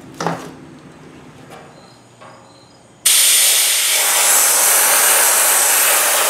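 Harbor Freight 50-pound portable sandblaster blasting abrasive onto a steel tractor part: a loud, steady hiss of air and sand that starts suddenly about three seconds in. Before it there is only faint handling of the plastic-wrapped blast gun.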